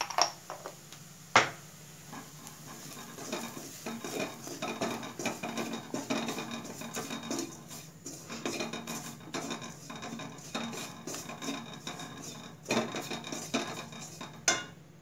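A spoon stirring and scraping spices and onions around a cooking pan, with sharp taps of the spoon against the pan at the start, about a second in, and near the end.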